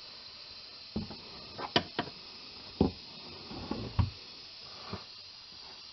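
A handful of sharp clicks and knocks, the loudest a little under two seconds in, as a screwdriver and the just-pried-out transmission filter are handled against the transmission's aluminum housing.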